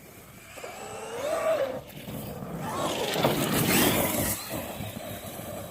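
A car passing on the road, its engine and tyre noise swelling to a peak about three and a half to four seconds in and then fading. Earlier there is a short whine that rises and falls in pitch.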